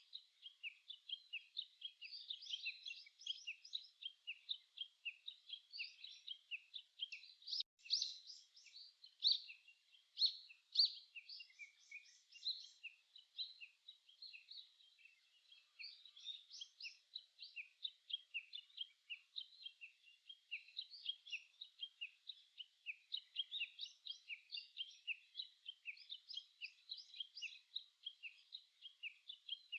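Birdsong: many small birds chirping and singing at once in a continuous chorus of short, high notes, a few louder calls standing out about a third of the way in.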